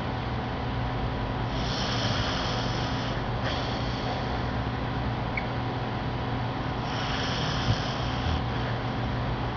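Pet dog snoring in its sleep: two long snoring breaths, each about a second and a half, roughly five seconds apart.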